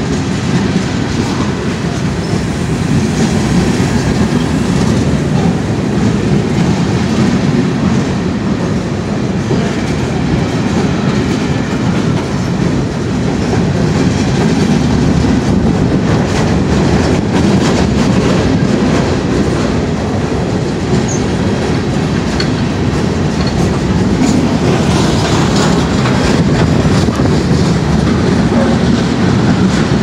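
Empty open-top hopper cars of a long freight train rolling steadily past close by, a continuous rumbling rattle with wheels clicking irregularly over the rail joints.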